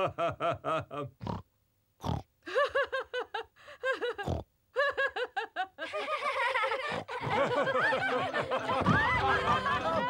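Cartoon pig family laughing: separate laughs in short rhythmic bursts with pauses, then from about six seconds in everyone laughing together at once.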